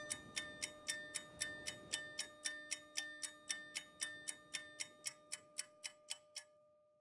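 Steady, even ticking like a clock, about four ticks a second, over a faint held tone. It grows fainter and stops about six seconds in.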